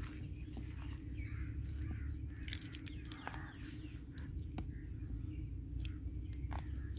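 Birds chirping and calling over a steady low rumble, with scattered sharp clicks.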